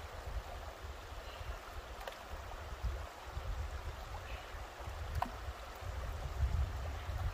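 Shallow river running over stones, a steady rushing of water, with an uneven low rumble underneath.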